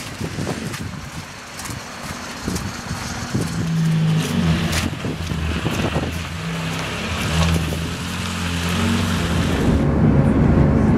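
Electric train running: scattered clicks and knocks at first, then a low steady motor hum comes in about three and a half seconds in and grows into a louder rumble near the end.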